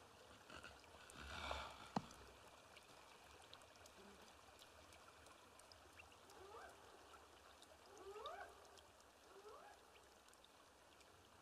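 Faint ambience like trickling water. A sharp click comes about two seconds in, and three short rising calls follow in the second half.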